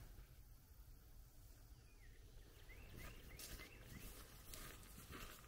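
Near silence: faint outdoor ambience with a few faint bird chirps about two seconds in, then light scattered rustling.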